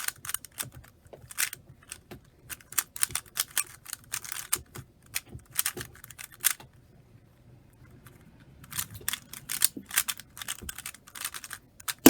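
Plastic 3x3 speed cube being turned fast, in clusters of rapid clicking turns. The turning pauses for about two seconds midway, and a sharp knock comes at the very end.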